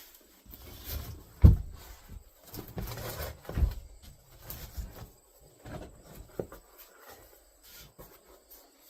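Wooden furniture dolly being handled and turned over: a series of knocks and thumps of wood against wood, the sharpest about one and a half seconds in.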